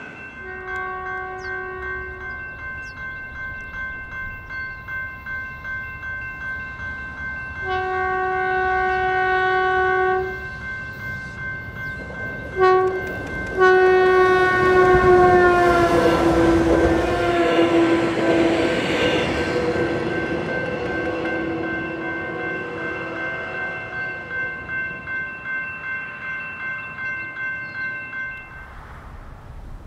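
Siemens Desiro diesel multiple unit sounding its horn in the grade-crossing pattern (long, long, short, long), the last blast dropping in pitch as the railcar rushes past with its engines and wheels, over a grade-crossing bell ringing steadily until it stops near the end.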